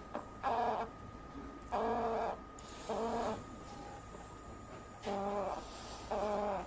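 An animal's short pitched calls, five in all, each about half a second long and coming at a steady pace, over a faint steady high-pitched hum.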